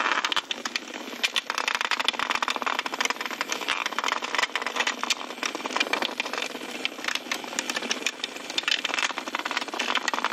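Several Hexbug Nano vibration-motor toys running in a plastic arena: a continuous dense rattle of rapid clicks and buzzing as they skitter over the plastic floor and knock against the walls.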